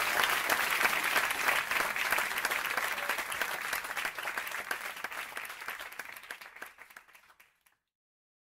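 Theatre audience applauding, the clapping fading away over several seconds and then cutting off suddenly to silence near the end.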